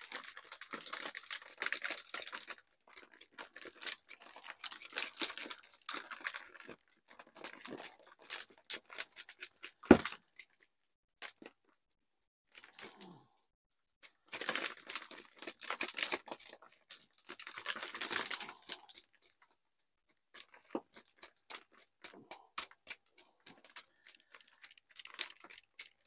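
Scratching and crumbling of old bonsai soil being worked off a trident maple's root ball as the roots are teased out, in bouts of a few seconds with short pauses. One sharp knock about ten seconds in is the loudest sound.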